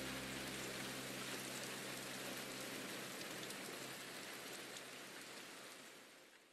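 Recorded rain ambience in the background music: a steady, faint rain hiss with scattered drop ticks. A low held note dies away at the start, and the rain fades out near the end.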